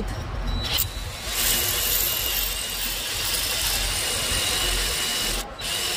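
Electric drill boring out a snapped exhaust manifold bolt with a 4.8 mm bit: a short burst just under a second in, then steady drilling with a whine, stopping briefly near the end.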